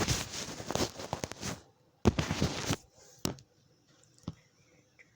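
Close handling noise: crackly rustling with small clicks and pops in two bursts, then a few single clicks.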